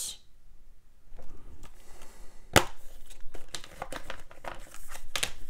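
A plastic Blu-ray case being handled and opened: crinkling and rustling, one sharp click about two and a half seconds in, then a run of lighter clicks and paper rustles as the booklet comes out.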